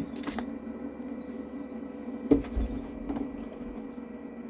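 Steady whir of the Jackery Explorer 500's inverter cooling fan while it powers an electric pressure cooker drawing about 685 W, more than the unit's 500 W rating; the overload trips the power station out within these seconds. A single knock with a low thud about two seconds in.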